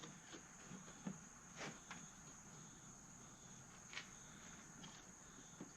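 Near silence: faint scattered clicks and rustles of a new air filter being worked into an ATV's airbox, over a steady high-pitched whine.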